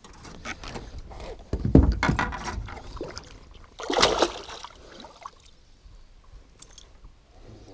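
A hooked smallmouth bass thrashing and splashing at the surface beside the boat, with a sharp splash about four seconds in. Before it, about two seconds in, comes a louder, deeper burst of thumping and rustling.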